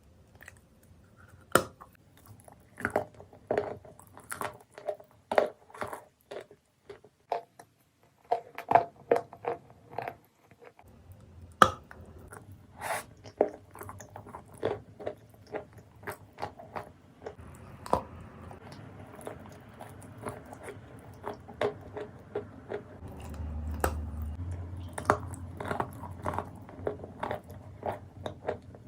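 Turkestan clay being bitten and chewed: a string of sharp, irregular crunches.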